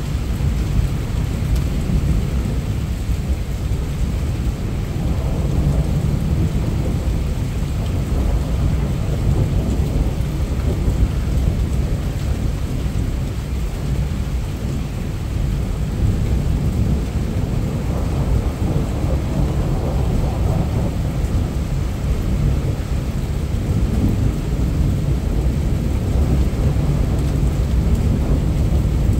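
Heavy rain falling steadily, with a deep, continuous rumble of thunder underneath.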